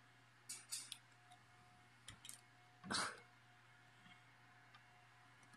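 Amazon parrot's beak working on a plastic Rubik's cube: a few sharp plastic clicks, then a louder crack about three seconds in as the cube is pulled apart.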